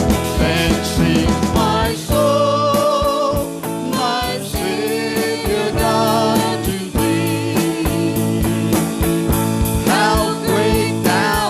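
Live worship band playing a song with a steady drum beat, with singers' voices carrying the melody.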